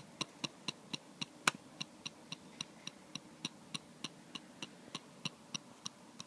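MacBook Air glass trackpad being tapped rapidly, about four taps a second, each giving a tinny click-rattle, with one louder tap about a second and a half in. The rattle seems to come from a loose trackpad or a gap between its glass and steel.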